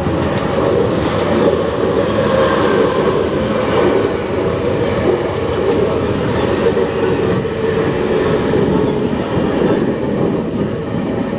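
Tokyu Toyoko Line electric commuter train passing close by at a level crossing, a loud steady rumble of wheels and running gear, with a faint high tone falling slowly. A steady ringing tone under it fits the crossing's warning bell.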